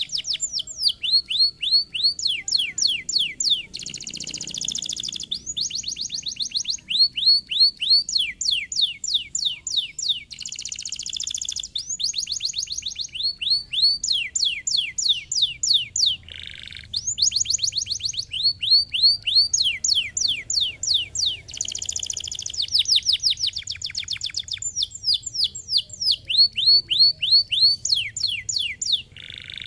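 Domestic canary singing a long, continuous song: rapid trills of quick downward-sweeping notes alternating with buzzy rolled phrases. There is a brief break with a short rasping note about halfway through.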